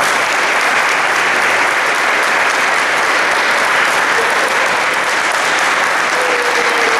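Steady applause from a small crowd of people clapping in a school gymnasium.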